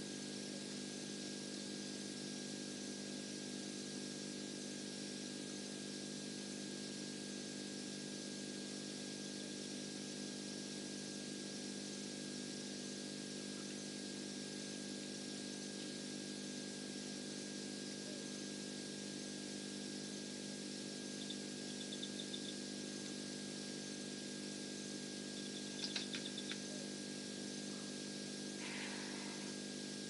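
Steady electrical hum and hiss from a live wildlife camera's audio feed, with a constant faint high whine. Near the end there are a few faint short chirps and small clicks.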